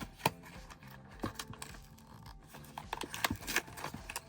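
Small cardboard blind box being worked open by hand against a tight fit: scraping and rubbing of fingers on cardboard, with scattered sharp clicks, the sharpest just after the start and a cluster about three seconds in.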